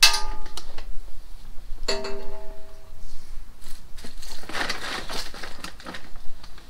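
Plastic tarp rustling and crinkling as it is pulled and tucked over a boat, loudest about two-thirds of the way through. Two knocks on metal ring briefly, one at the start and one about two seconds in.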